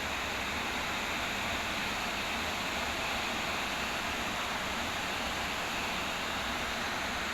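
Heavy rain pouring down in a windy summer storm, a steady, even rushing hiss.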